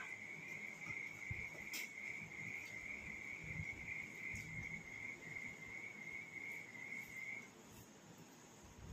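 A cricket trilling in one steady, continuous high note that stops abruptly near the end, with soft sounds of rice being mixed and eaten by hand underneath.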